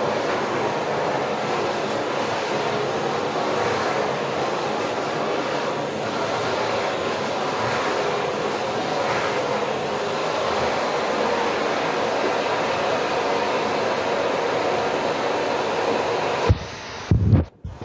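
Household vacuum cleaner running with a steady noise. Near the end there are a couple of thumps, and the noise cuts out briefly.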